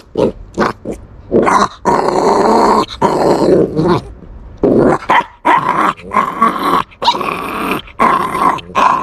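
Puppy growling in a run of rough growls, some brief and some held for a second or two, while guarding a bone it is chewing.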